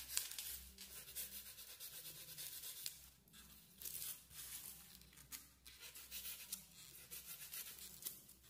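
Utility knife blade cutting through a styrofoam (expanded polystyrene) sheet: faint scratchy, tearing strokes of the blade in the foam, with a few brief pauses.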